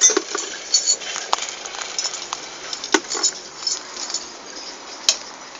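Metal hardware on a steel crossarm with insulators clinking and tapping as it is handled, with a few sharper knocks and short high jingles scattered through.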